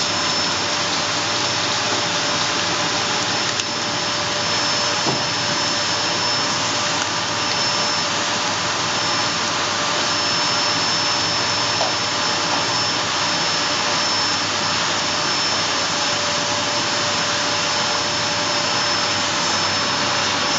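Steady whirring of a running motor, with a constant high-pitched whine over it.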